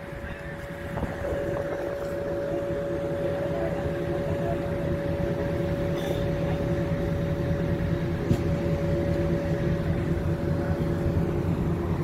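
Greyhound coach's wheelchair lift running as it slowly lowers a passenger, a steady motor whine over the low hum of the stopped coach.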